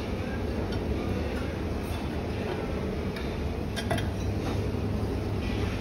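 Steady low hum of a lounge dining room, with a few light clinks of dishes and serving cutlery at a buffet; the clearest two come about four seconds in.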